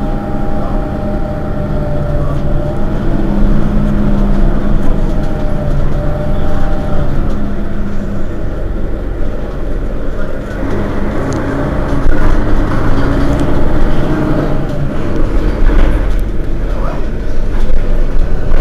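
Mercedes-Benz Citaro facelift city bus, its rear-mounted diesel engine idling at a stop: a steady drone with a hum that wavers slightly in pitch.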